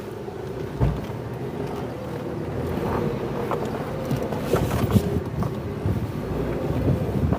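Leopard Black King Kong 2.2 four-wheel-drive SUV driving slowly over rough unpaved ground: the engine runs steadily, with a few knocks and bumps from the wheels and body over the terrain and wind noise on the microphone.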